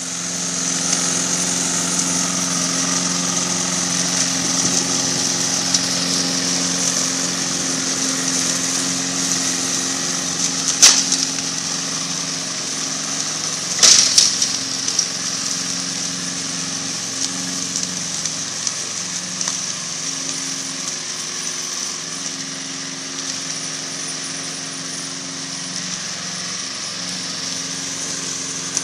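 Remote-controlled lawn mower running steadily, a low hum under a high whine. Two sharp knocks cut through it, about a third of the way and halfway through.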